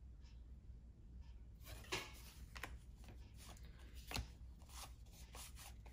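Basketball trading cards being flicked through and laid onto piles: a run of irregular soft flicks and slaps starting about a second and a half in, the sharpest about two and four seconds in.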